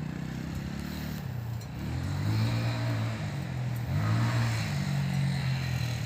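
Shineray 200 enduro motorcycle's single-cylinder engine running, its revs rising and falling in a couple of swells.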